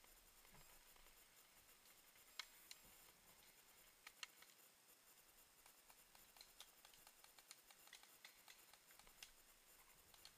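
Near silence with faint scattered clicks and ticks; a few sharper clicks stand out about two and a half seconds and about four seconds in.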